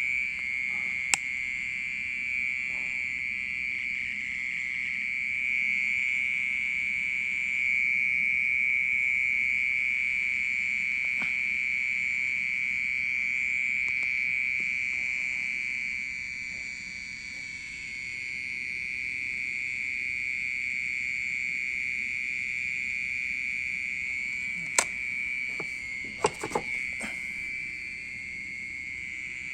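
A loud, continuous, high-pitched ringing trill at one steady pitch from an unseen insect in the soil of a plant pot. A few short knocks come near the end.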